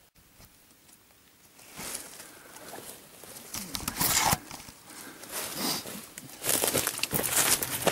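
Irregular rustling and crackling of dry leaves, sticks and grass close to the microphone, as someone moves about in the undergrowth; it starts nearly two seconds in and gets louder toward the end.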